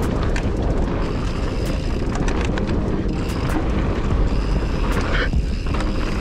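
Mountain bike riding fast downhill on a dirt trail: a steady rush of wind on the microphone and the rumble of knobby tyres on packed dirt, with frequent sharp clicks and rattles from the bike.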